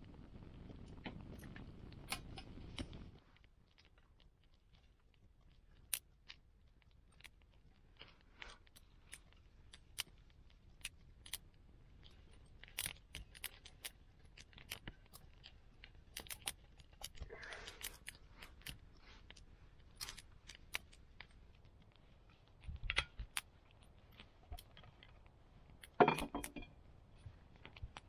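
Small wood-burning twig stove crackling, with scattered sharp pops and snaps from the burning sticks. A steady rush cuts off about three seconds in, and there are brief handling noises as wood is added, with a louder clatter near the end.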